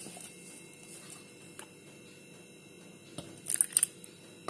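A hand working a crumbly rice-flour dough mix in a steel bowl: a soft, steady rustle of flour being rubbed and squeezed through the fingers, with a few crisp crackling scrapes about three and a half seconds in.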